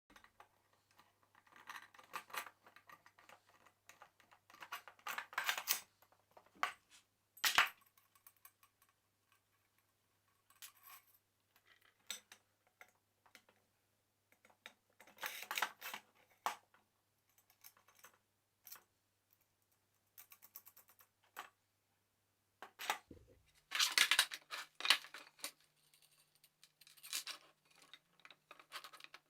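Metal parts of a homemade iron pipe clamp being handled and fitted together: irregular clusters of short clinks and clatters, with gaps of near quiet between them.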